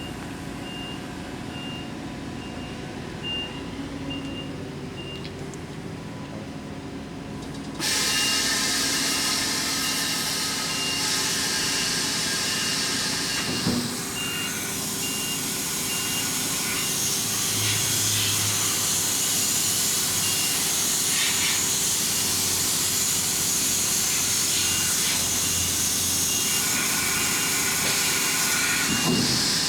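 Haas HS-1 CNC horizontal machining center running: a steady machine hum with a high beep repeating in short, even pulses. About eight seconds in, a loud steady hiss starts abruptly, and it stops just before the end.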